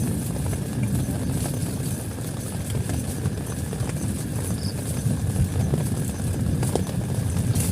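Heavy rain drumming steadily on a tent, a continuous low patter with scattered sharper drop ticks.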